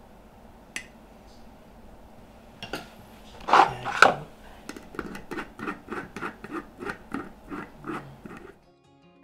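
Red plastic screw lid closing a glass jar of chicken floss. Two loud knocks come about three and a half to four seconds in, then a run of short scraping clicks, about three a second, as the lid is twisted down the threads. The clicks stop shortly before the end.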